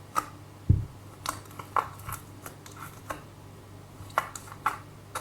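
Fluffy slime, made of glue slime and shaving foam, being squeezed and stretched by hand, giving a scatter of short, irregular sticky clicks and pops. A dull thump comes under a second in.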